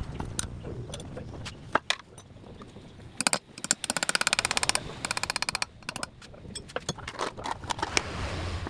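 Light hammer taps, metal clicks and knocks on a Suzuki engine's cylinder head and its valve gear during reassembly. A fast, even rattle of clicks comes about four seconds in.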